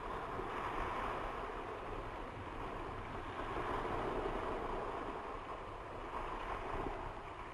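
Sea surf and wind on a beach: a steady rushing noise that swells and eases slowly.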